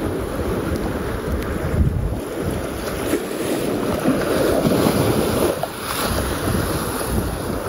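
Wind buffeting the microphone over the wash of choppy sea water, in uneven gusts with no distinct events.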